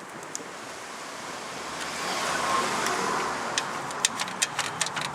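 Hands and tools working on parts in a car's engine bay: a rustling, rushing noise that swells about halfway through, then a quick, irregular run of sharp clicks near the end.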